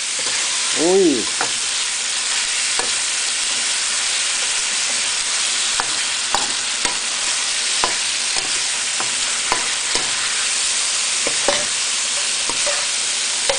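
Deboned duck feet in soy sauce stir-frying in a wok: a steady sizzle, with a metal spatula scraping and clicking against the wok now and then.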